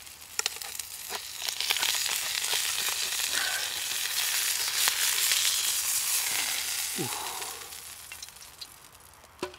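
Hot fat sizzling in a Trangia frying pan just off the burner. The sizzle builds about a second and a half in and fades away near the end, with a few light metal clicks at the start.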